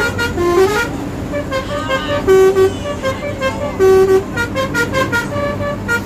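Bus multi-tone musical horn playing a tune of short stepped notes, over the steady low hum of an engine.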